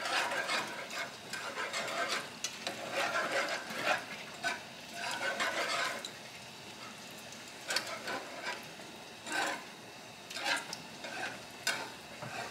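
Metal wire whisk stirring a cream sauce in a nonstick skillet, the wires scraping and tapping around the pan. Quick continuous whisking for the first half, then a handful of separate strokes.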